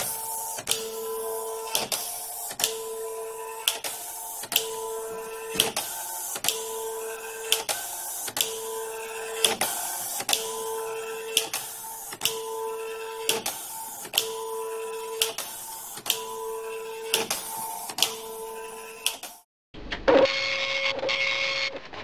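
Dot matrix printer printing line after line: a steady buzz of the print head crossing the page, ended each time by a sharp click, repeating about once a second. Near the end the sound cuts out briefly, then a short, brighter stretch of printing follows.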